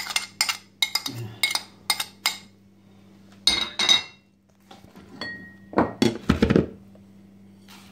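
Metal spoon clinking and scraping against a ceramic plate as ginger-garlic paste is scraped off into a plastic bowl: a quick run of clicks over the first couple of seconds, more knocks about three and a half seconds in, and a louder clatter of handling around six seconds in. A steady low hum runs underneath.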